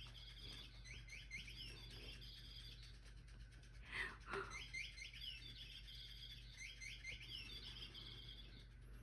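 Electronic flapping-bird cat toy playing its recorded sandpiper call: runs of rapid high chirps, repeated several times with a pause in the middle. A short thump about four seconds in.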